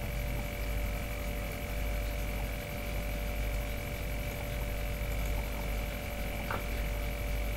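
Steady background hum with a few faint, steady high tones over it and one faint click about six and a half seconds in: the recording's room tone in a pause between spoken sentences.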